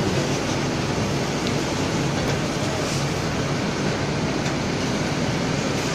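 Hydraulic chevron-belt bag stacker conveyor running, its rubber belt carrying sacks up the incline over its rollers with a steady mechanical noise and a few faint clicks.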